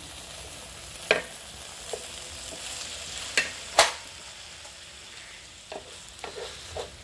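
Minced pork and greens sizzling in an enamel frying pan while a wooden spatula stirs them. The spatula knocks and scrapes against the pan about seven times, loudest a little after one second and just before the middle.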